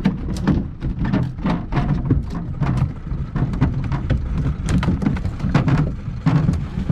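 Freshly landed dorado (mahi-mahi) thrashing inside a fiberglass panga, its body and tail slapping the hull in rapid, irregular knocks over a steady low rumble.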